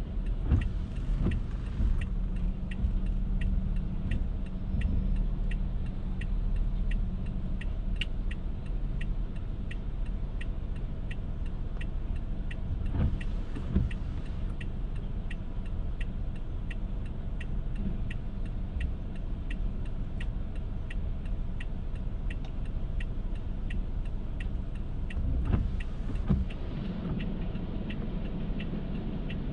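Car driving in the rain: steady low engine and road rumble, with a regular light ticking about twice a second throughout and a brief louder swish three times, about twelve seconds apart.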